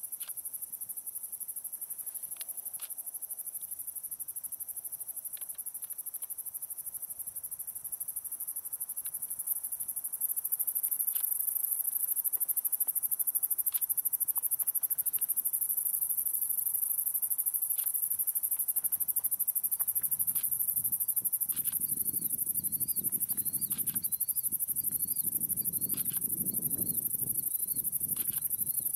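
Steady, high-pitched chorus of night insects such as crickets, with a faster chirping joining in about three quarters of the way through. A low rumble swells for several seconds near the end.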